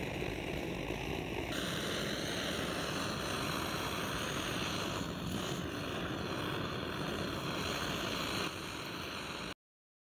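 Antique Barthel gasoline blowtorch burning, its pressurised flame giving a steady roaring hiss that grows brighter about one and a half seconds in. The roar cuts off suddenly near the end.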